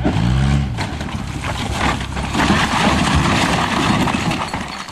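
A car engine running under load for a moment as it pushes, then an engineless 1991 VW Jetta tumbling down a dirt and rock embankment: a long rolling crash of repeated impacts of the car body and loose rocks, loudest about two seconds in.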